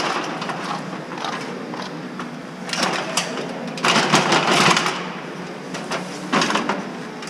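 Mini excavator at work: the diesel engine runs steadily under load, with three bursts of louder, harsh mechanical noise from the working attachment about three, four and six and a half seconds in.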